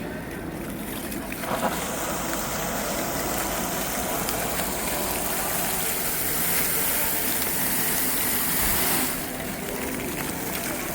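Water fountain running, a steady rush of falling, splashing water. The rush swells about two seconds in and drops back about nine seconds in as the display changes, which is believed to be computer-controlled.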